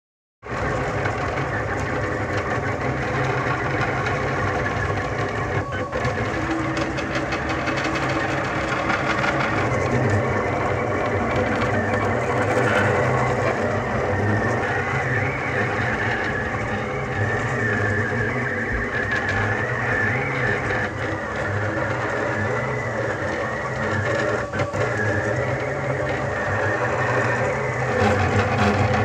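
Rostock-style delta 3D printer printing nylon 618 filament: its stepper motors run steadily, giving a dense mix of changing motor tones over a low hum as the print head moves.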